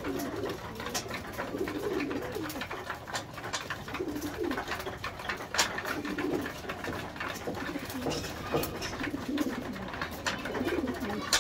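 A flock of homing pigeons cooing on and off while feeding, with frequent sharp clicks of beaks pecking grain from a metal trough.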